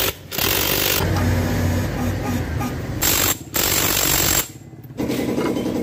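Cordless impact wrench hammering as it drives home the pulley nuts on a Honda Beat scooter's CVT. It runs in bursts with short breaks, about a third of a second in, at about three and a half seconds and again around four and a half seconds.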